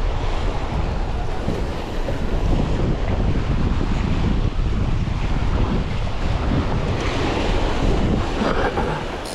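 Strong wind buffeting the microphone over rough sea surf, a steady unbroken rush with a heavy low rumble.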